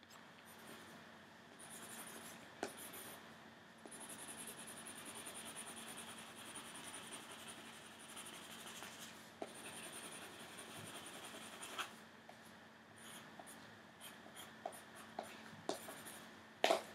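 Pencil drawing on a sheet of paper: faint scratchy strokes that come and go, with a few sharp clicks near the end.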